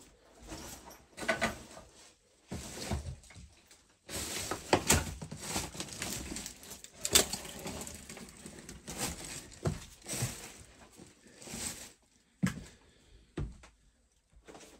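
Irregular knocks, clicks and rustling from people moving about and handling things in a small room, busiest in the middle stretch and sparse near the start and end.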